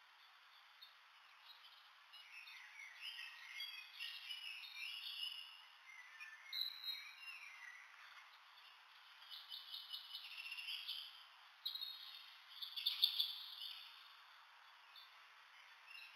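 Roosting bats squeaking: faint, high-pitched chirps in irregular clusters, the loudest cluster about thirteen seconds in.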